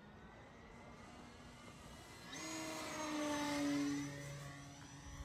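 Durafly Night Tundra electric RC plane's motor and propeller whining in flight. The whine swells about two seconds in, its pitch slides slowly down as the plane passes, then it fades.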